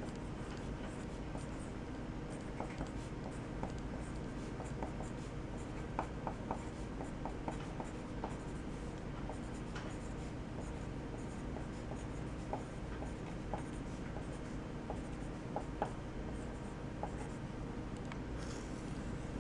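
BIC Student's Choice 0.9 mm mechanical pencil writing on paper: the lead scratching in short strokes, with small ticks scattered through, over a steady low background hum.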